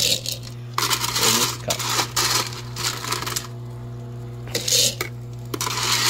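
Nugget ice maker running with a steady motor hum, while small hard ice nuggets clatter and clink in several short bursts.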